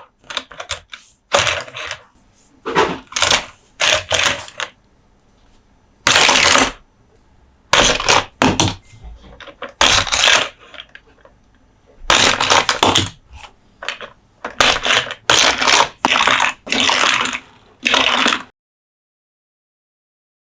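Close-up hand-handling sounds: an irregular series of short scraping, crackling rustles, as of toys or packaging being rubbed and handled. These cut off abruptly to silence near the end.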